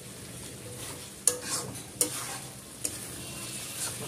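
A spatula stirring thick, reduced chicken curry in a metal kadai, scraping and knocking against the pan about four times over a steady sizzle of the frying masala.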